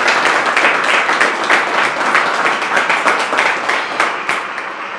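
Audience applauding, a dense patter of many hands clapping that thins out and dies down in the last second.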